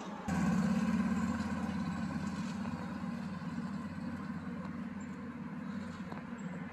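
Low rumble of a motor vehicle's engine in street traffic. It starts abruptly and slowly fades over several seconds.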